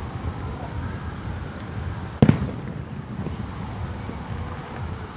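Fireworks: one sharp, loud boom about two seconds in, with a steady low rumble of the show going on throughout.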